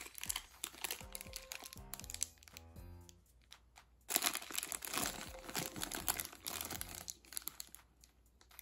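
Thin plastic wrapping bag crinkling and rustling as it is handled, loudest from about four seconds in, after a first stretch of crackling while a plastic capsule toy is pulled open. Soft background music plays underneath.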